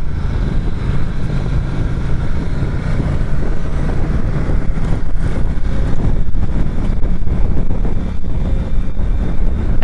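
Ducati Diavel 1260's Testastretta L-twin engine running steadily under way, heard from the rider's seat together with road and wind noise.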